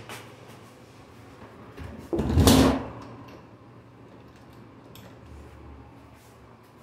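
A restroom stall door being moved, with one brief loud noise about two seconds in, over a steady low room hum.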